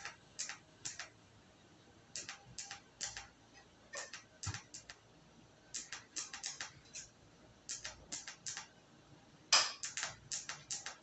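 TIG welding arc on sheet metal, crackling in short bursts as it is struck again and again: clusters of two to four quick ticks every second or two, the loudest about nine and a half seconds in.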